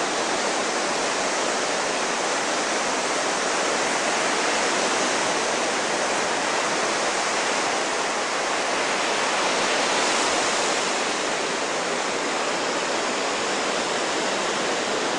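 Steady rushing of water, loud and even, swelling slightly about ten seconds in.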